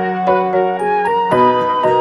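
Background music: a light melody of short keyboard notes over a held low note.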